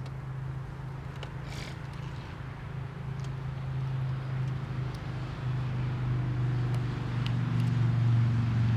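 A steady low engine hum, growing louder toward the end, with a few faint clicks over it.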